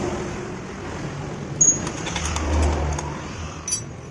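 Sharp metallic clicks and clinks of hand tools on a motorcycle's electric starter motor as its mounting bolts are loosened and it is worked free of the engine, over a steady background rumble.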